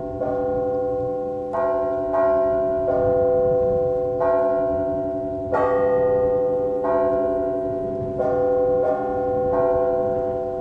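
Russian Orthodox church bells rung by a bell-ringer in a matins peal: several bells of different pitch struck in turn, about one stroke a second, their tones overlapping and ringing on under a steady low bell tone.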